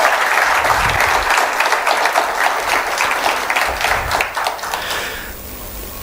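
Audience applauding, the clapping dying away about five seconds in.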